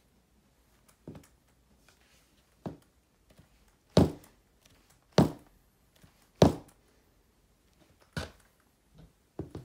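Chunky block-heeled platform boots stepping and stomping on a hard floor: a series of separate heavy thunks, about one every second or so, the loudest three in the middle.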